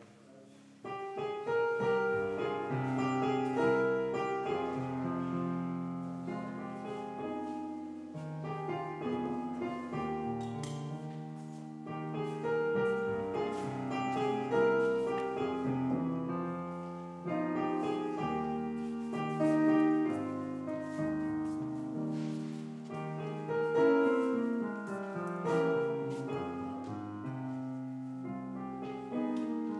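Piano music playing a slow, flowing piece; it grows much louder about a second in.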